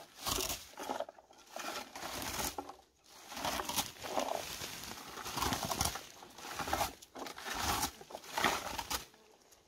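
A hand-held berry picker raked through bilberry bushes: repeated rustling strokes of leaves and twigs, roughly one a second, stopping about nine seconds in.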